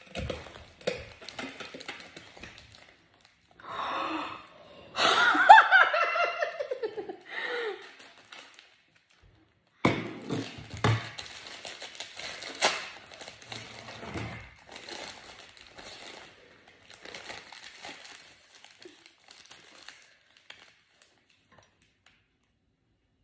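Crinkling and rustling of a plastic snack packet being opened and handled, with small clicks. A short burst of voice comes about five seconds in.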